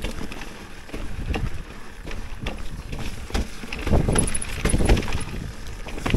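Mountain bike ridden over a snowy trail: wind buffeting the microphone over the rumble of tyres and frame, with irregular knocks and rattles that grow louder about two-thirds of the way through.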